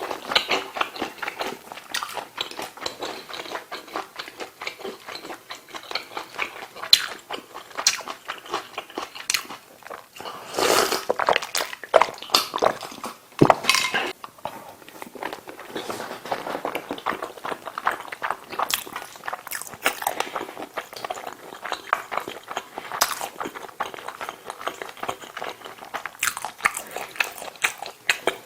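Close-miked eating: a person chewing and biting food from a kimchi stew and curry rice meal, with many short sharp mouth clicks and smacks. There are a couple of louder, longer noisy stretches about ten and thirteen seconds in.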